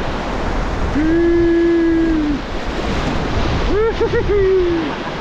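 Whitewater of a big river rushing steadily around a raft, with wind buffeting the microphone. Two long whooping shouts rise over it, the second wavering, about a second in and near the end.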